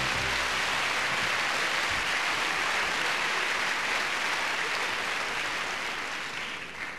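Large audience applauding, dying away near the end.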